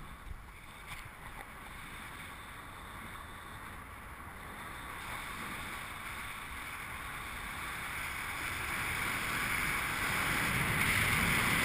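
Wind rushing over an action camera's microphone during tandem paraglider flight, a steady rush that grows steadily louder.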